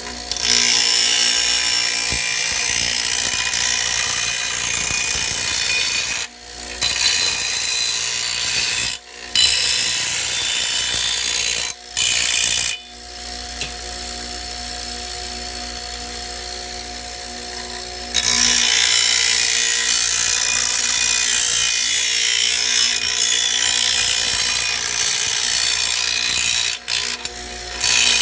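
A powered grinding wheel running steadily while a steel machete blade is ground against it, giving a loud, harsh hiss. The grinding breaks off briefly a few times, and about halfway through the wheel runs on its own for a few seconds before the grinding starts again.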